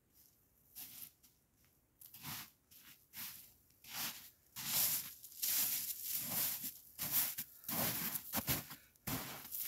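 Footsteps crunching in snow, about one to two a second, getting louder as someone walks closer.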